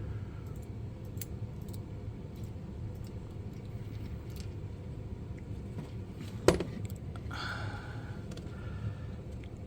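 Small metal lock parts and a key being handled, with faint clicks and light scraping, then one sharp metallic click about six and a half seconds in.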